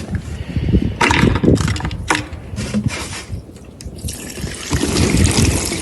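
Liquid pouring and splashing, with irregular knocks and clatter.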